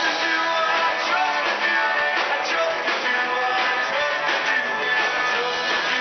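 Live rock band playing: strummed electric guitar over a drum kit, picked up thin and without bass.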